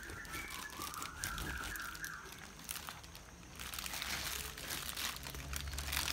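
A long knife cutting down through a large jackfruit's rind and fibrous flesh as it rests on a plastic sheet, with crackling and plastic crinkling that grow louder from about halfway through.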